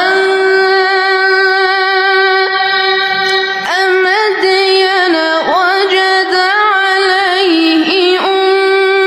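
A Quran reciter's voice holding a long, high note in melodic recitation. About three and a half seconds in, it breaks into several quick ornamented turns.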